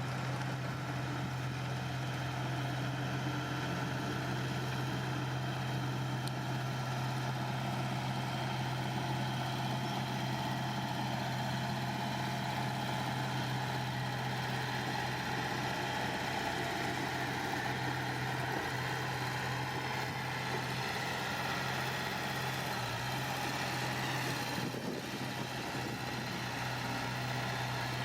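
Heavy diesel engine of earthmoving machinery running steadily, with a constant low hum and no revving.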